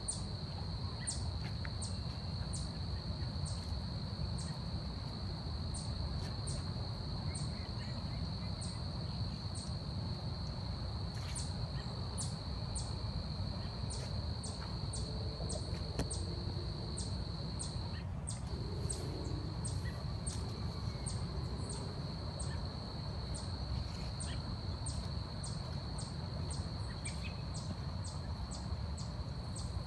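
Forest insects: a steady high-pitched drone with sharp high chirps repeating about once a second, the drone dropping out briefly about two-thirds of the way in. Faint bird calls come and go over a low rumble.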